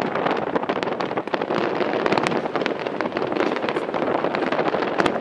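Distant fireworks display: a dense, continuous crackle of many small sharp pops over a steady rushing noise.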